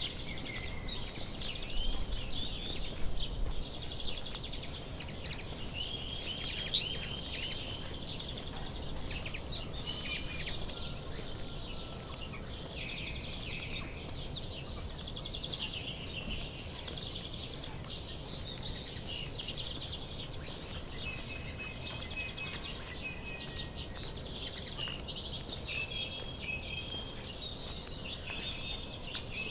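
Several small birds singing and chirping, with many short, varied calls and trills overlapping throughout, over a steady low background noise.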